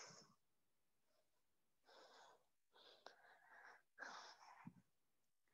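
Near silence with faint, breathy exhalations, about four short breaths a second or so apart, from a person exerting herself during a leg-raise exercise.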